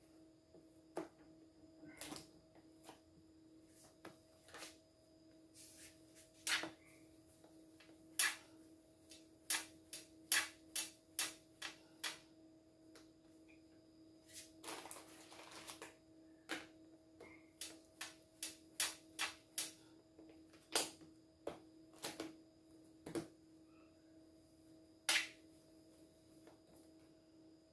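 Red plastic dough scraper knocking against the table in irregular sharp clicks as bread dough is chopped into portions, with one brief scraping rustle about halfway through. A steady faint hum runs underneath.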